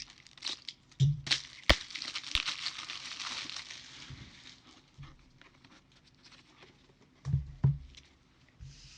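Plastic card sleeves and bags rustling and crinkling as a trading card is handled, with a couple of sharp clicks near 2 s and a few soft thumps on the table, two of them close together near the end.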